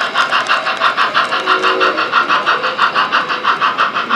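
Rapid, even chuffing of an On30 model steam locomotive, about eight beats a second. A short steady tone comes in about a second and a half in.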